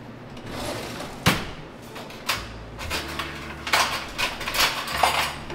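Kitchen things being handled while a fiber drink is mixed: scattered sharp taps and knocks, one about a second in and a quick cluster of them near the end.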